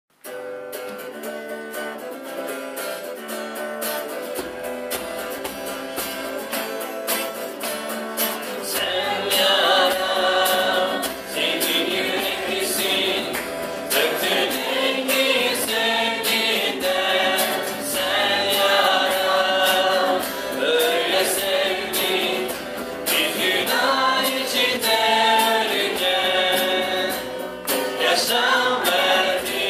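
A worship band playing a Turkish hymn: strummed acoustic guitar opens, bass comes in about four seconds in, and from about nine seconds in men's and women's voices sing together over the guitars.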